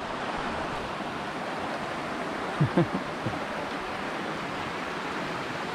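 Steady rush of river water flowing over rocks. Two or three brief low thumps come close together about two and a half seconds in.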